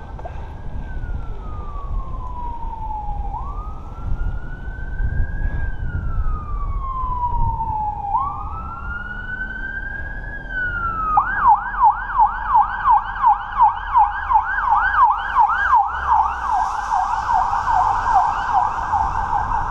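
Emergency-vehicle siren in a slow wail, rising and falling over a few seconds at a time. About eleven seconds in it switches to a fast yelp of about three sweeps a second, over a low steady rumble.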